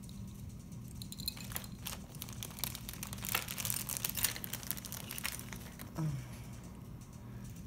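Plastic zip-top bag crinkling and rustling as hands rummage in it and draw out a small padlock, with scattered small clicks; busiest in the middle, then settling down.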